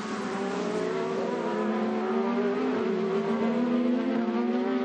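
IndyCar's 2.2-litre twin-turbo V6 race engine under load. Its pitch slowly rises through a gear, then eases slightly near the end.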